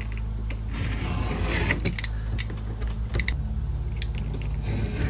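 Snap-off utility knife cutting through leather against a plastic cutting mat: a series of short scraping strokes and small clicks, over a steady low hum.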